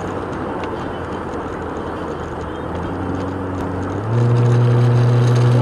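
Road and tyre noise heard from inside a moving car, then about four seconds in a loud, steady car horn blast starts and is held.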